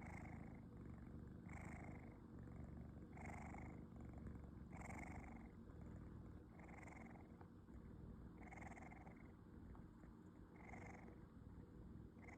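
Sleeping kitten snoring softly: a faint, breathy snore with each breath, about every second and a half, over a low steady rumble.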